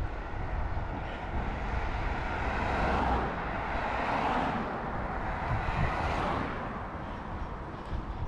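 A motor vehicle passing, its noise swelling for a few seconds in the middle and then fading, over a steady low rumble of wind on the microphone.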